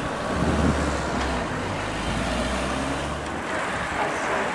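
A motor vehicle's engine running close by, a steady low hum that lasts about three seconds and then fades, over continuous wind and road noise.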